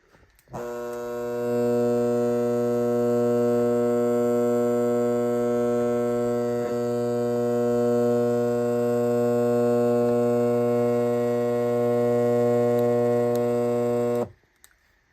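Lasko fan's AC motor running with its blades removed, giving a steady electrical buzz like a garage door opener motor. It switches on about half a second in, swells over the first second, and cuts off sharply near the end.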